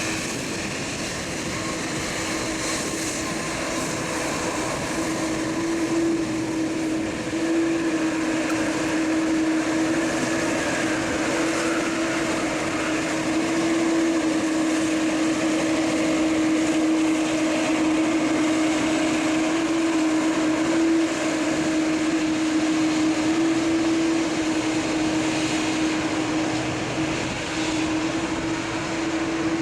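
Jet airliner engines running at taxi power: a steady whining hum with rushing air noise, swelling slightly in the middle and easing toward the end.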